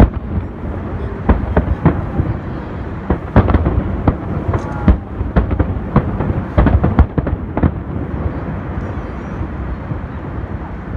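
Fireworks display: rapid, overlapping bangs and crackles from aerial shells bursting, over a steady low rumble. The bursts come thick for most of the stretch and thin out over the last few seconds.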